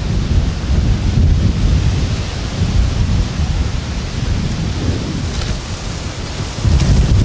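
Wind buffeting the camera microphone: a loud, uneven rumble in gusts with a steady hiss over it, strongest again near the end.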